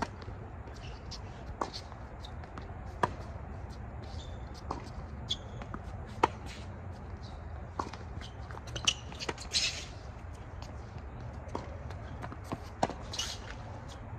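Tennis rally on a hard court: sharp pops of the ball off the rackets and bouncing on the court, opening with a serve, spaced a second or two apart. Scuffing footsteps run between the hits, over a steady low hum.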